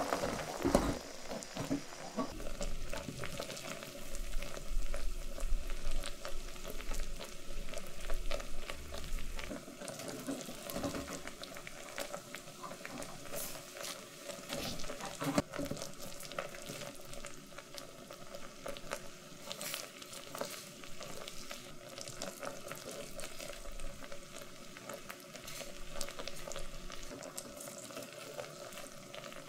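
Sugar-and-agar tanghulu syrup boiling hard in a metal pan, a steady bubbling sizzle full of small pops, as skewered fruit is rolled through it to coat it. It is somewhat louder in the first ten seconds.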